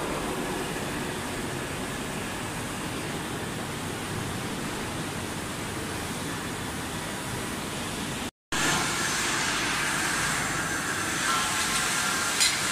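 Steady background noise of a large factory hall, with no distinct machine in front of it. It cuts out completely for a moment about eight seconds in, then comes back a little louder with a few faint steady tones.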